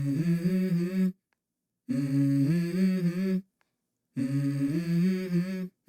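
Background music: a hummed vocal melody in three short phrases, each broken off by a brief dead silence.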